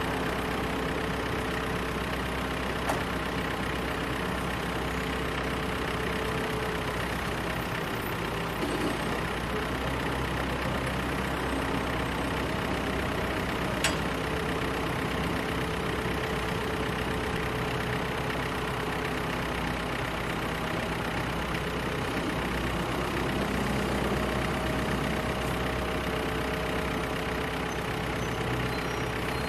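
Truck engine idling steadily, with a sharp click about 14 seconds in and a fainter one about 3 seconds in.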